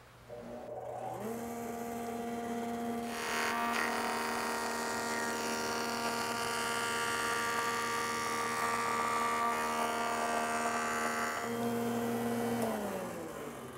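A jointer/planer combination machine's motor and cutter head spin up to a steady hum. A board is then fed across the cutter head for about eight seconds, adding a dense cutting noise over the hum. Near the end the machine is switched off and its pitch falls as it winds down.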